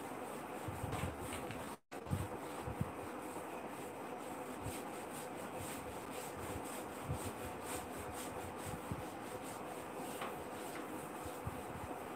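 Faint rubbing of marker and eraser on a whiteboard, with a few soft knocks, over a steady room hiss.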